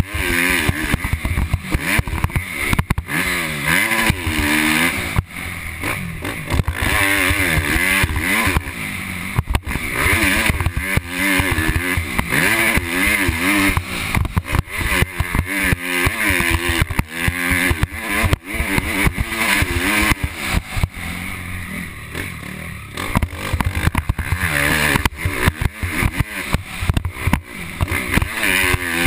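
Motocross dirt bike engine revving hard, its pitch climbing and dropping again and again as the bike is ridden around the track. It is heard from a helmet-mounted camera, with wind rushing over the microphone and jolts from the bumps.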